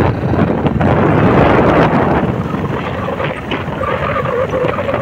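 Wind rushing over the microphone of a moving motorbike, mixed with the bike's running and road noise. A faint steady whine joins in near the end.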